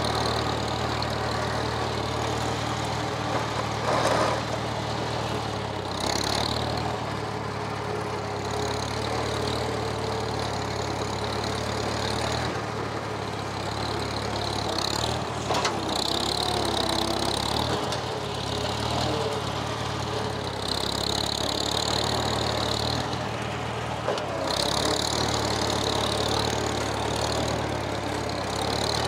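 Old tractor engine running steadily as the loader digs out pond muck, with a couple of short clunks, one about four seconds in and one about halfway through.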